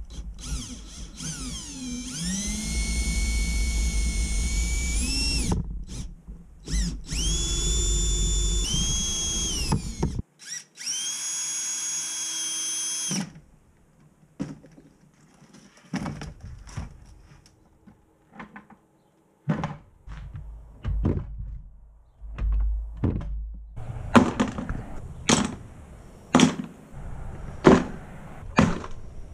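Cordless drill boring into a hard plastic cooler box: three runs in the first half, each spinning up with a rising whine and then holding a steady pitch, the first about five seconds long. After that come scattered knocks and clunks of the plastic box being handled.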